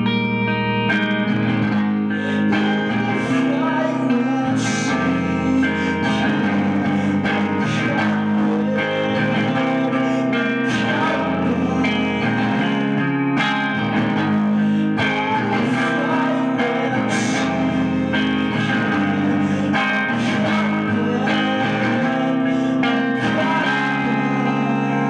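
A Gibson electric guitar played live, chords strummed steadily, with a man singing into the microphone at times.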